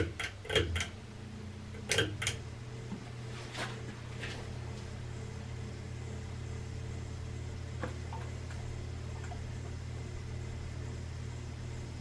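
Hampton Bay Rockport ceiling fan motor humming steadily, with several sharp clicks of its pull-chain speed switch in the first few seconds as the chain is cycled through the speeds.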